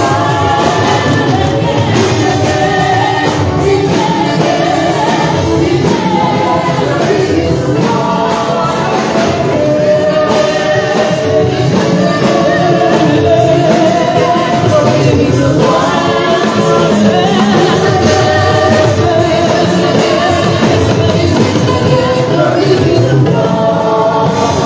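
Gospel music: voices singing over instrumental backing.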